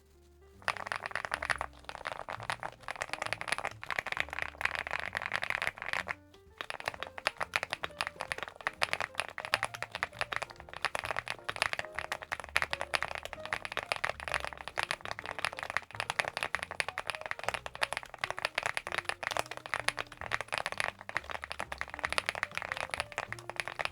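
Fast typing on a CIDOO V75 Plus gasket-mount mechanical keyboard: a dense run of keystroke clacks over background music, with a brief pause about six seconds in.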